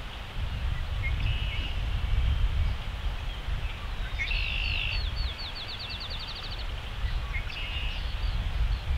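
Songbirds singing: short high trills about a second in and again near the end, and in the middle a longer song that breaks into a rapid run of quick high notes. Under the birdsong runs a steady low rumble.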